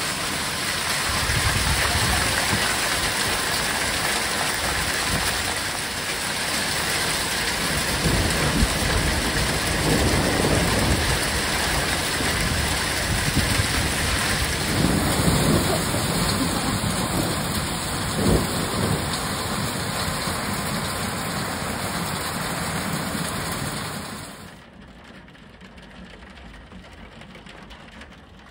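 Heavy rain pouring down in a dense steady hiss, with thunder rumbling low several times. About 24 seconds in the sound drops suddenly to a much quieter hiss of rain.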